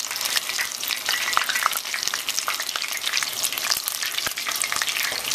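Pieces of fish in tempura-style batter deep-frying in hot vegetable oil: a dense, steady crackle and sizzle of bubbling oil.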